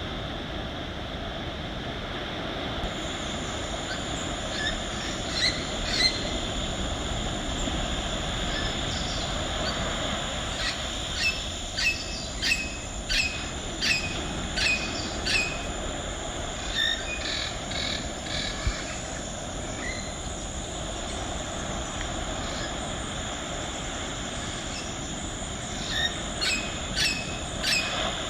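Runs of short, sharp wild animal calls, about one and a half a second, a few near the start, a long run in the middle and another near the end, over a steady outdoor background hiss with a high steady hum.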